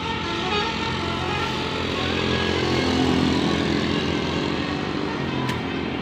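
Road traffic: vehicle engines and tyres running, growing louder to about halfway through as a vehicle passes close, then easing off. A short click near the end.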